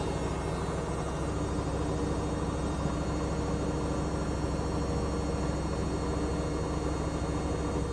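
Washing machine running with a steady low hum and a few steady tones, wobbling and vibrating as it makes a weird sound.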